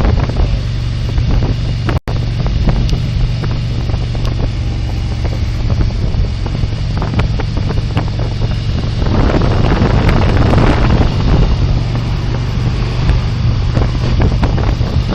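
Wind buffeting a body-worn camera microphone on a moving police motorcycle, over the steady low running of the motorcycle's engine. The wind grows stronger from about nine seconds in, and the audio drops out for an instant about two seconds in.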